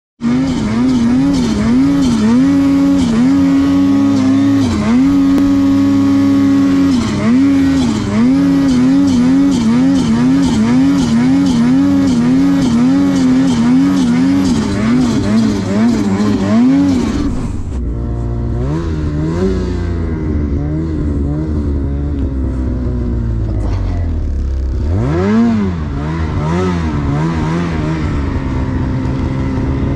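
Ski-Doo Freeride snowmobile's 850 turbo two-stroke twin running hard under load, its pitch wavering rapidly up and down as the throttle is worked. About 17 seconds in the sound changes abruptly to lower revs with a deep rumble, and near 25 seconds the engine revs up and drops back once.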